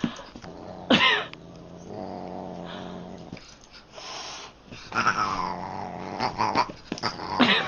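A cat calling and growling: a short loud yowl about a second in, a steady low growl, then a long yowl falling in pitch, and another short call near the end.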